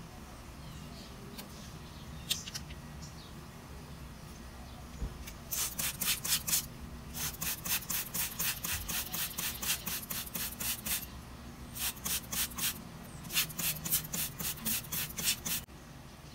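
Hand trigger spray bottle misting water, squeezed rapidly in four runs of quick spritzes, about five a second.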